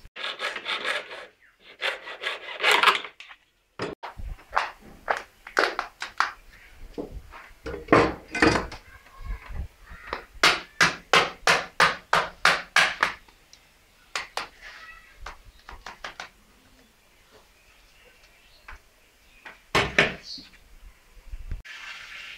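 Hand tool scraping and rubbing in repeated rasping strokes. There is a quick run of them, about two a second, near the middle.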